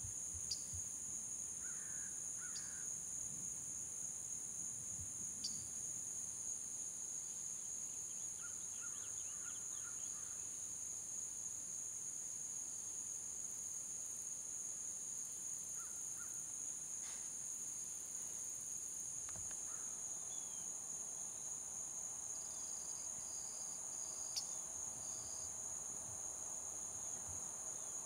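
Steady, high-pitched chorus of insects, with a few brief chirps and ticks over it.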